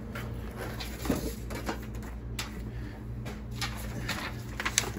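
Scattered light clicks and rustles of objects being handled, over a steady low hum, with a few sharper clicks near the end.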